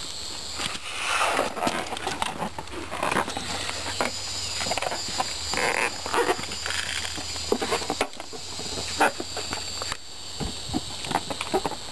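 Irregular rustling and clicking close to the microphone, over a steady high drone of insects.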